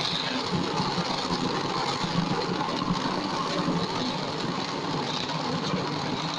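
Electric blender motor running steadily, blending a milk smoothie.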